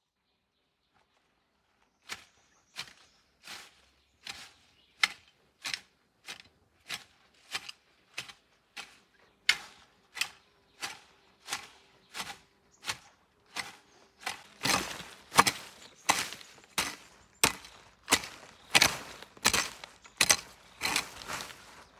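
Hand hoe chopping into soil and weeds in steady strokes, about three every two seconds, starting about two seconds in. The strokes become louder and closer from about two-thirds of the way through.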